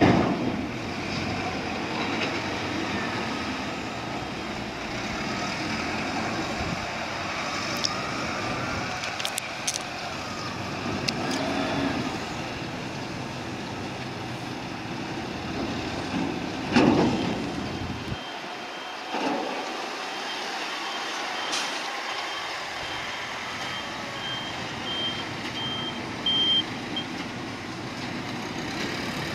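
Heavy cargo-handling vehicles running, with a reversing warning beeper sounding in a steady high tone for a stretch in the second half. A few loud knocks come near the start and once more about midway.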